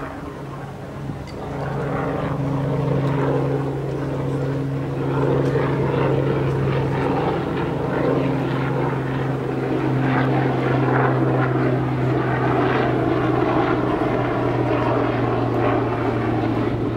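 A motor engine droning steadily with a low, even hum, growing louder over the first five seconds and then holding.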